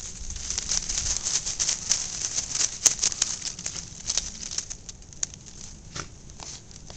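Dry twigs and dead leaves crackling and rustling as Jack Russell terriers push and nose through a brush pile, with one sharp snap about three seconds in. The crackling is dense at first and thins to scattered snaps for the last couple of seconds.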